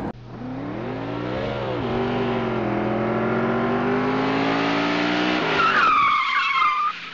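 Motor vehicle engine revving, its pitch rising and dipping about a second and a half in, then holding steady before dropping near the end, followed by a high tyre screech lasting about a second.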